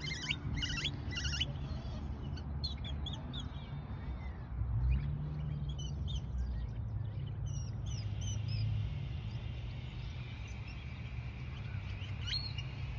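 Birds chirping and calling in short, repeated high notes, busiest in the first second or so, over a steady low rumble.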